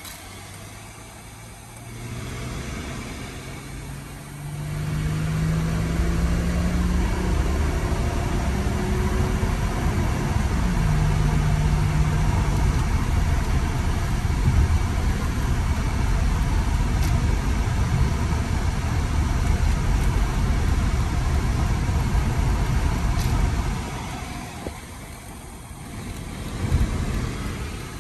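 The Mercedes-Benz SLK 320's 3.2-litre V6 running, with a low, steady engine sound. It gets louder and rises in pitch about five seconds in, holds strong for most of the stretch, then eases off near the end.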